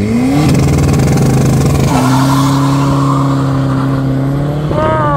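Two Audi cars, an A4 saloon and an A3 hatchback, launching side by side from a standing start. Their engines rev up quickly, then hold steady at high revs as they pull away.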